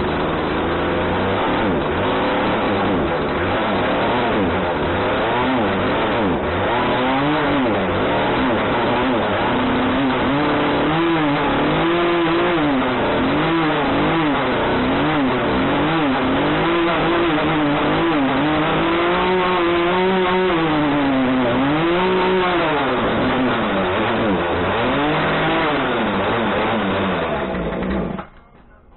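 Poulan P3314 33 cc two-stroke chainsaw engine running, revved up and down over and over with the throttle, then cutting off about a second before the end. It is running again after being found dead at a scrapyard and given a little fresh fuel.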